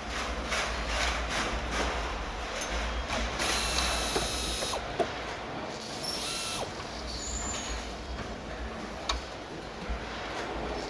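Car-factory assembly-line machinery and tools working: a steady low hum under mechanical clatter and ratcheting, with two bursts of hissing around the middle and a few sharp clicks.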